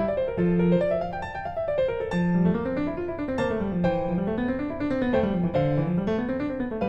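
Background piano music: flowing, rising and falling arpeggio figures.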